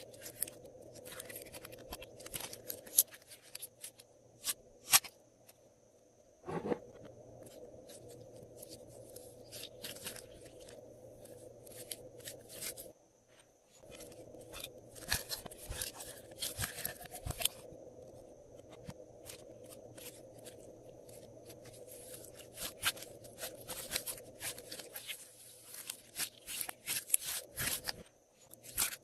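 Glossy slime being squished, stretched and folded by hand, with clusters of sharp crackling and popping clicks and a brief lull about halfway through, over a faint steady hum.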